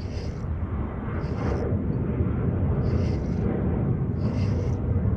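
Steady low rumble of wind buffeting the microphone. Over it, short whirring bursts from a spinning reel repeat about every second and a half as a hooked fish is reeled in on a bent rod.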